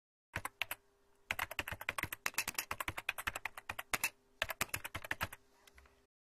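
Computer keyboard typing. A few keystrokes, then a fast run of clicks for about three seconds, a short pause, and another quick run near the end, over a faint steady hum.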